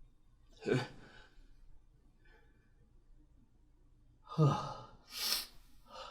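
A person's sneeze sounds: a short voiced breath about a second in, then near the end a voiced 'ah' followed at once by a hissy burst, and a small breathy sound just after.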